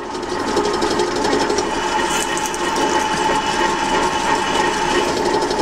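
Bench drill running with a 10.2 mm twist drill cutting steadily down into a clamped metal block lubricated with cutting oil: a steady motor hum and whine over the scrape of the bit cutting.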